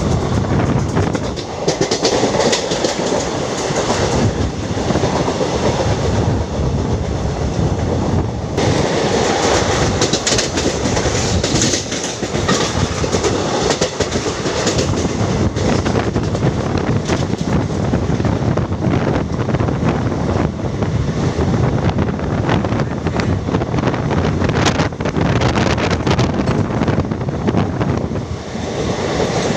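Passenger train running along the track, its wheels giving a loud, continuous rumble and rattle with clickety-clack clicks over the rail joints.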